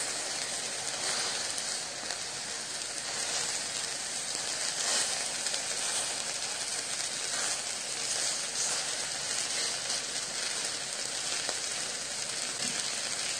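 Wild boar meat sizzling steadily as it grills on a large round griddle pan.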